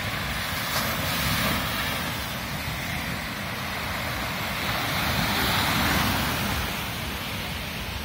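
Small Baltic Sea waves breaking and washing up on a sandy shore, the surf swelling about a second in and again around five seconds in, with wind rumbling on the microphone.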